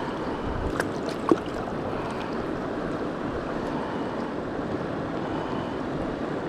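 Mountain stream water rushing steadily, with a couple of small clicks about a second in.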